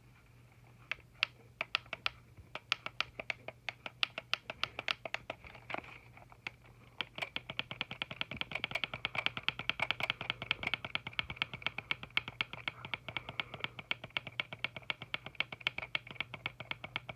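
Small plastic clicks from the Timex alarm clock's controls being worked, a few irregular clicks at first, then a fast, even run of several clicks a second from about seven seconds in, over a faint steady high tone.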